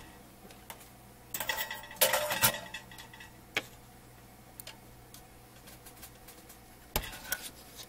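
Light clicks, taps and a short clatter with a brief ring from hands picking up and handling a plastic AA battery holder and its wire leads on a workbench, loudest about two seconds in, followed by a single sharp click near the end.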